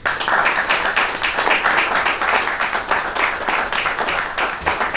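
Audience applauding, many hands clapping at once; it breaks out suddenly.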